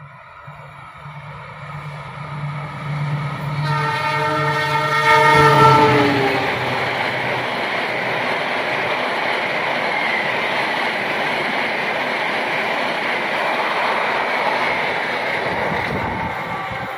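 Argo Semeru express train at speed, its diesel locomotive (usually a CC206 on this train) approaching with a low steady engine drone. The locomotive sounds its horn for about three seconds, and the pitch drops as it passes. The passenger coaches' wheels then run by on the rails in a long steady noise that fades near the end.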